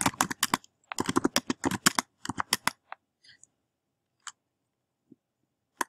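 Computer keyboard typing: a quick run of keystrokes for about the first three seconds, then a few scattered single key presses.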